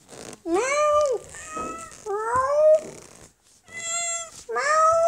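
Domestic cat meowing repeatedly: about four meows in quick succession, each under a second long, some arching in pitch and one rising.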